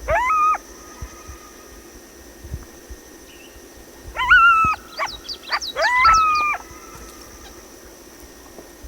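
Coyote giving three short howls, each swooping up and holding briefly, with a quick run of yips between the second and third. A faint steady high-pitched hum, like insects, sits underneath.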